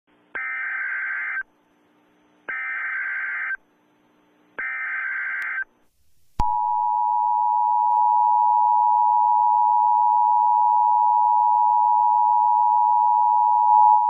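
Emergency Alert System tones: three short buzzy data bursts of the SAME header, each about a second long and a second apart, then the steady two-tone attention signal, starting about six seconds in, that announces a tornado warning.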